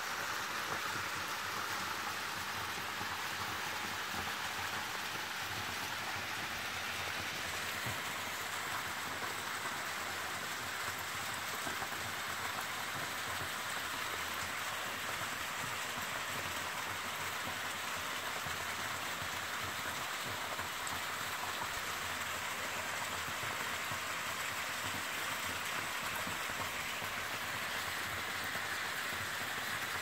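A narrow waterfall pouring steadily into a rock pool, an even splashing rush of water.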